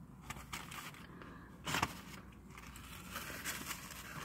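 Paper crinkling and rustling as a sandwich wrapper and a napkin are handled, with one louder short burst of noise nearly two seconds in.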